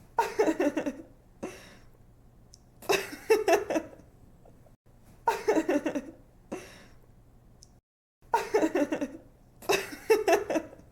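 A young woman giggling: about five bursts of quick, high laughter, each about a second long, with short breathy pauses between them.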